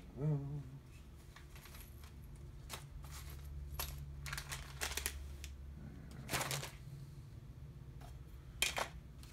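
Plastic parts bags crinkling and rustling, with irregular small clicks and taps, as electronic components are handled in a cardboard box. A brief voice-like hum near the start, and a low steady hum underneath.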